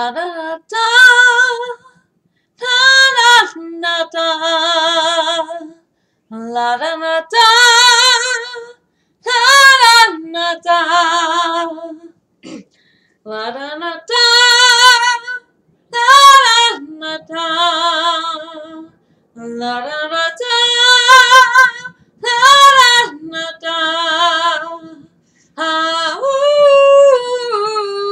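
A woman singing unaccompanied, in phrases of long held notes with vibrato, breaking briefly between phrases.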